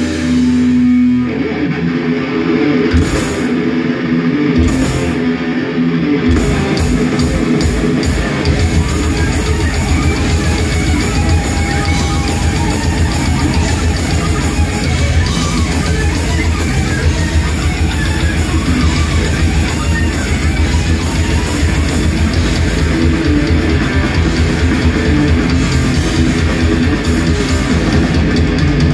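Live heavy metal band playing loud distorted electric guitars, bass and drums: a held guitar chord at first, then a riff with a few separate accented drum hits, breaking into fast, continuous drumming under the riffing about six seconds in.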